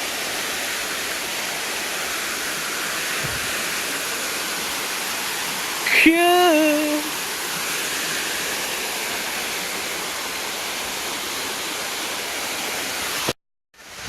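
Small waterfall and creek water rushing steadily. About six seconds in, a short voiced call of about a second rises over it. Near the end the sound cuts off abruptly.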